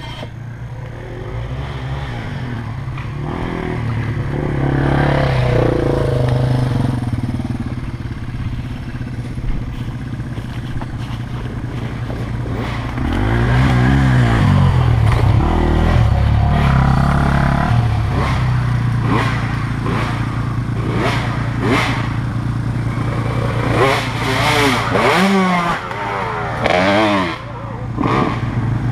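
KTM 450 SX dirt bike's single-cylinder four-stroke engine running close to the rider's helmet, the revs rising and falling as the throttle is worked, most clearly about halfway through and again several times near the end. Some clattering goes with it in the later part.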